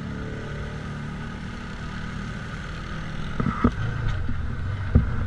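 Side-by-side off-road vehicle engine running steadily, getting louder about halfway through as it drives onto a rocky trail, with a few sharp knocks from the machine bumping over rocks.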